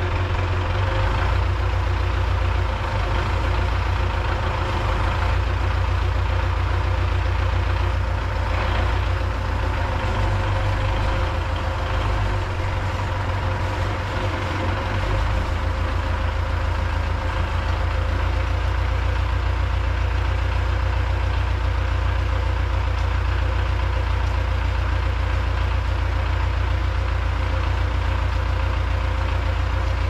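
MTZ-82 tractor's four-cylinder diesel engine running steadily at low revs, a deep continuous engine hum.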